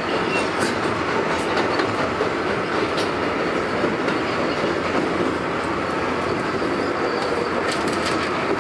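Inside an R142A subway car running through a tunnel: a steady rumble of wheels on rail, with a few sharp clicks from the track, the clearest about three seconds in and several close together near the end.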